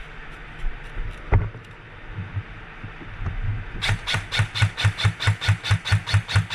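Airsoft gun firing a fast string of shots, about six or seven a second, starting near the middle and running on. Before it come a few scattered faint shots and one sharp crack a little over a second in.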